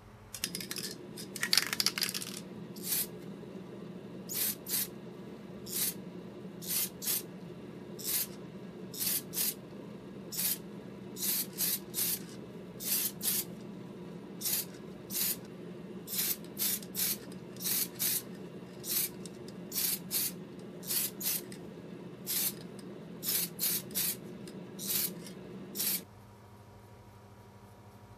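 Aerosol spray paint can sprayed in many short bursts, roughly one or two a second, each a brief hiss, with a longer, louder burst near the start. Under it a spray booth's fan hums steadily and cuts off about two seconds before the end.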